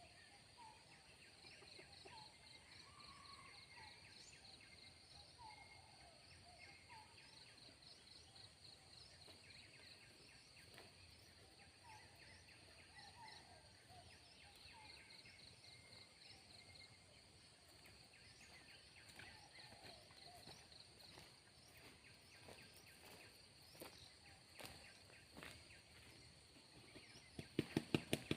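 Faint forest ambience: steady high insect trilling with scattered small bird chirps. A quick run of loud taps comes in near the end.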